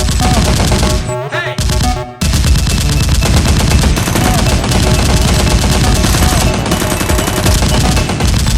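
Rapid automatic gunfire sound effects, bursts of machine-gun fire laid over background music. The firing breaks off briefly about a second in and starts again just after two seconds.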